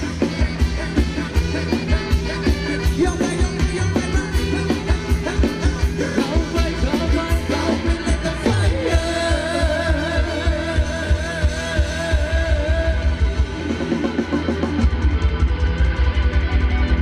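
Live band playing fast Thai ramwong dance music, with a steady pounding drum beat and bass. About halfway through, a wavering held melody line comes in over the beat.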